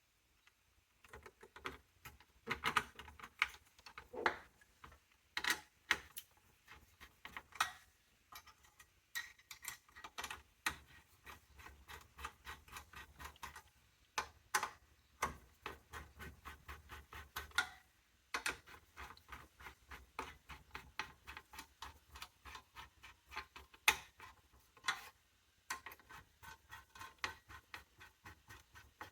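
Hands working on desktop computer parts: a run of sharp clicks and small knocks of metal and plastic, with stretches of quick, even ticking.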